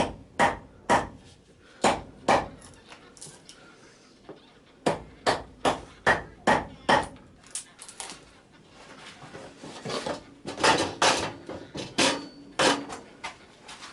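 A tool striking mountain cherry wood in a series of sharp knocks, about two a second, with a short pause after about two seconds; about ten seconds in come quicker, rougher strokes, like a blade cutting into the wood.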